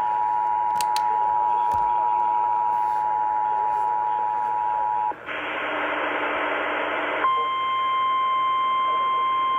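Emergency Alert System two-tone attention signal, a steady dual tone, over radio audio; it cuts off about five seconds in. About two seconds of hiss like static follow, then a single steady alert tone of the NOAA Weather Radio kind begins and holds, the signal that a warning message is about to be read.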